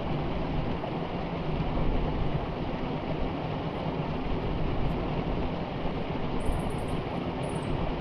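Small waterfall spilling over rocks into a stream pool: a steady rush and splash of water.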